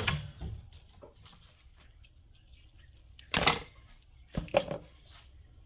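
A few brief rustles of paper and light knocks on a worktop. The loudest rustle comes about three and a half seconds in, followed by two lighter knocks about a second later.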